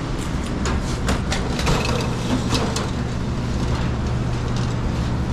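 Busy pizzeria kitchen: a steady low machinery hum from the kitchen equipment, with scattered clatter and knocks of utensils and pans in the first few seconds.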